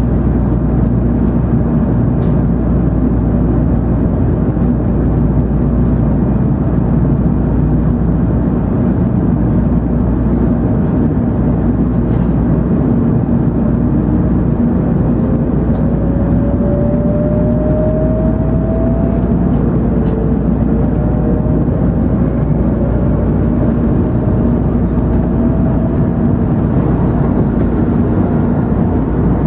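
Inside an N700-series Shinkansen car as the train pulls out and gathers speed: a steady running rumble, with a thin whine rising in pitch about halfway through as the traction motors accelerate.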